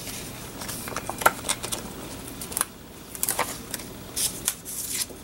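Scissors cutting paper: an irregular series of short snips and paper rustles, with a few sharp clicks.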